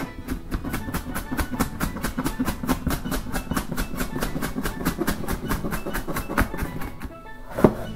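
Kitchen knife rapidly mincing onion on a cutting board: quick, even chopping taps, about six or seven a second, with one louder knock near the end.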